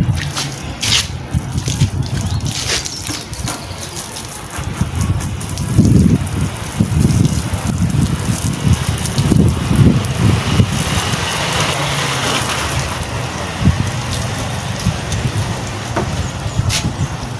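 Water from a garden hose running and splattering on a car and the pavement during a wash, as a steady hiss, over an uneven low rumble.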